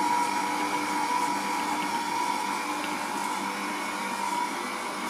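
Silvercrest SKM 650 A1 stand mixer's 650-watt motor running at a steady pitch with a whine, its flat beater working butter into flour and sugar for a shortbread dough.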